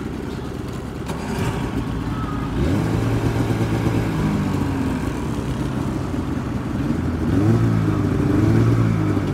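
Polaris snowmobile engines running, revved up about three seconds in and again near the end, the pitch rising and holding before settling back.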